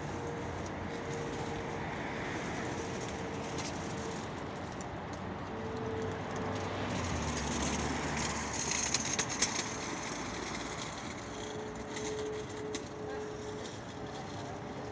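Steady city street traffic noise, swelling as a vehicle goes by about seven to ten seconds in, with a faint hum that comes and goes.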